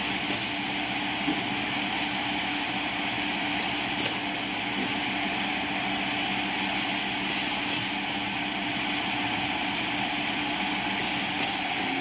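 Continuous dough dividing machine running with a steady motor hum as it extrudes and conveys dough. Its pneumatic cutter gives short sharp air hisses every few seconds, often in pairs, with small knocks as it chops the dough strip.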